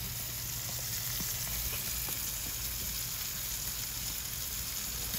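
Two ribeye steaks sizzling in a very hot cast iron skillet, a steady hiss with a few faint ticks: the high-heat searing stage of a reverse sear.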